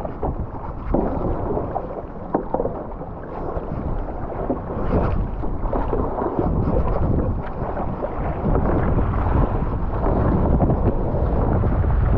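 Water rushing and splashing along a stand-up paddleboard as it is paddled onto and rides a small wave, with wind buffeting the microphone. The rush grows louder about four seconds in and again near the end as whitewater builds around the board.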